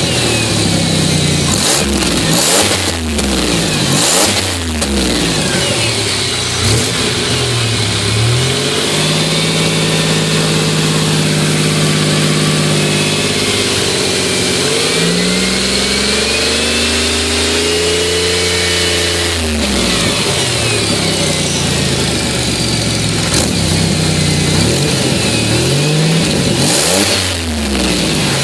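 Warmed-up car engine being revved by hand: a string of quick throttle blips, then held at raised revs for several seconds and pushed higher before dropping back, then more quick blips. The car has a misfire that comes in the mornings; here the engine is at operating temperature.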